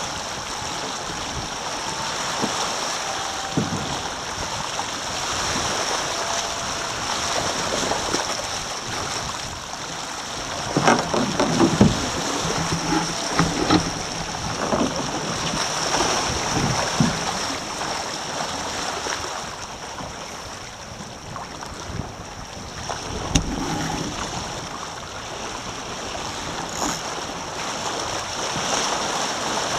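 Water rushing and splashing along the hulls of a Taipan sailing catamaran, with wind buffeting the microphone. A cluster of sharp knocks comes about a third of the way in and a single one about three quarters of the way in.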